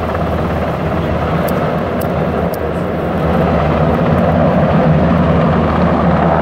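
Helicopter flying overhead: a steady rotor and engine drone that grows a little louder about halfway through.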